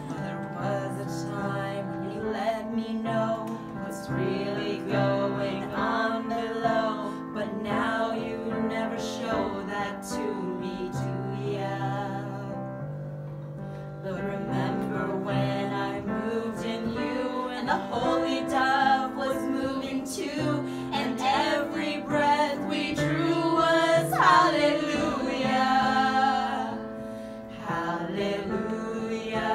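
A small group of women singing a slow song together to piano accompaniment, holding long notes.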